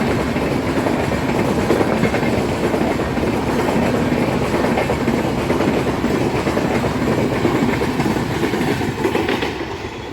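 Express train running on the track: steady noise of wheels on rails, dropping off a little near the end.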